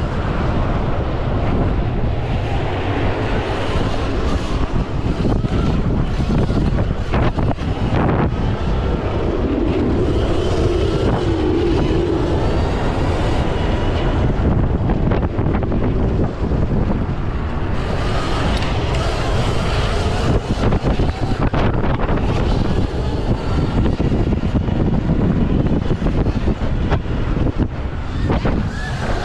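Wind rushing over the onboard camera's microphone, mixed with the riding noise of a stock Sur Ron X electric dirt bike racing over a dirt motocross track. Faint high whining tones come and go.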